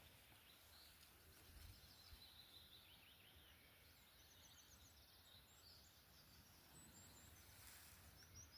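Faint songbirds chirping and trilling in short high phrases over near-silent background hiss.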